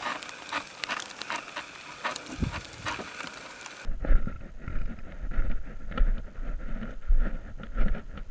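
Faint scattered clicks over a steady hiss, then, after a cut about four seconds in, footsteps on a dirt road with low wind rumble on the microphone of a body-worn camera.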